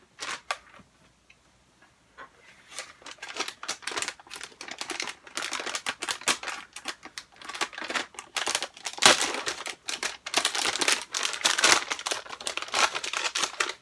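Clear plastic bag packaging being handled and opened, crinkling and rustling with many sharp crackles. It starts after a couple of soft clicks and grows busy about two seconds in.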